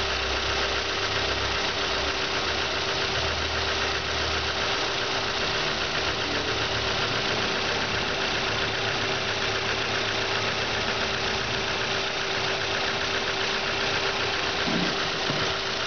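Car engine idling steadily, with a constant hum over it, during a combustion-leak check of the cylinder head gasket. The coolant is bubbling and has changed colour, which the mechanic takes as a sign that the head gasket is failing.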